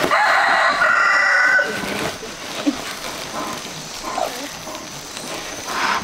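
A rooster crowing once, a sustained call of about a second and a half at the start, followed by quieter farmyard sounds.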